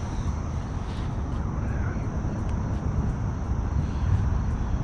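Steady low rumble of a jet aircraft passing over.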